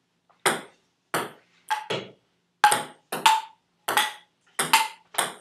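Table tennis rally: the plastic ball struck back and forth by paddles and bouncing on the table, about ten sharp clicks, several with a short ringing pong.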